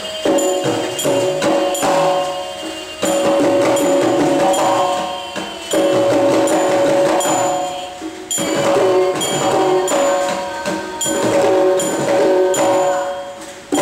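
Kerala temple percussion ensemble: mizhavu copper pot drums struck hand-on-skin in quick repeating strokes, with talam hand cymbals ringing over them. The playing surges louder in new phrases several times, about three, six and eight seconds in.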